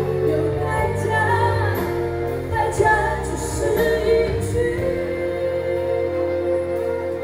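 Live pop music with a female vocalist singing over a band, recorded from the crowd on a phone. The heavy bass drops out about five seconds in, leaving sustained chords.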